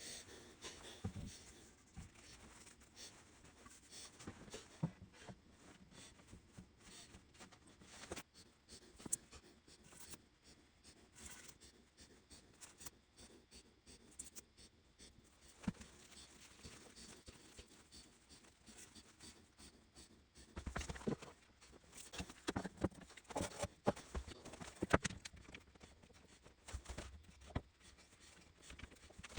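Faint, scattered light knocks, clicks and scrapes of wooden boards being handled and glued up for a table top. They come more thickly about 21 seconds in.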